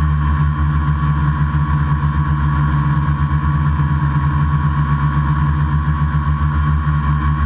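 Electric motors and propellers of a multirotor drone buzzing steadily as it flies low, heard from the camera mounted on it.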